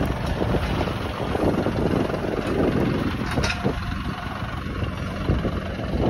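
Tractor engine idling, with wind buffeting the microphone in gusts. A single sharp click about three and a half seconds in.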